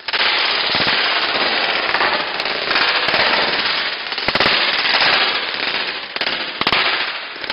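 Firecrackers going off in rapid succession: a dense crackle of sharp pops that starts suddenly, with a few louder bangs in the second half.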